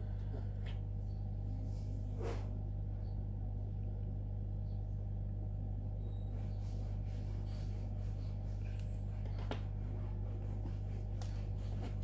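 A steady low hum, with a few faint ticks and rustles of wires and small metal parts being handled.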